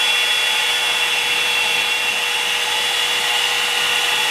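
Revlon blow-dry brush running on high as a plain hair dryer with its brush attachment off: a steady rush of air with a steady motor whine.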